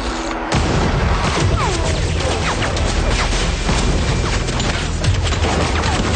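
Dense action-film sound mix: a rapid run of crashes and impacts over a constant low rumble, starting abruptly about half a second in.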